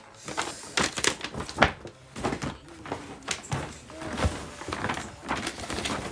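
Paper gift bag being handled and opened: irregular rustling and crinkling with sharp knocks and thumps, the loudest about a second and a half in.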